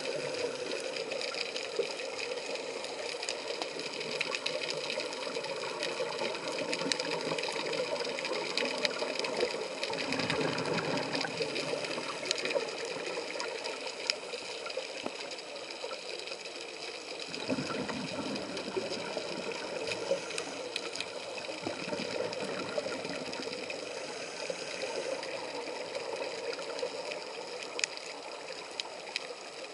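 Underwater sound through a diving camera's housing: a steady mechanical whir with several faint high tones, scattered sharp clicks, and louder rushing swells about ten and seventeen seconds in.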